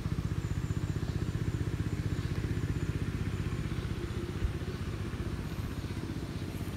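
A small engine running steadily off to one side, with a rapid even pulse and no change in speed, and a single click about four and a half seconds in.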